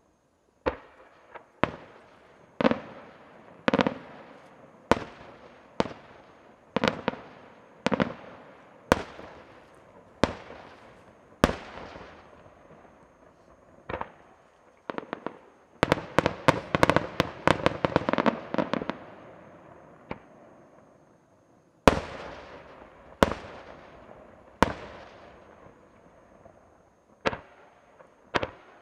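Aerial fireworks shells bursting overhead. Sharp bangs come about once a second, each trailing off in an echo. In the middle a rapid volley of many bangs runs for a few seconds, then after a short lull a loud bang and a few more single bursts follow.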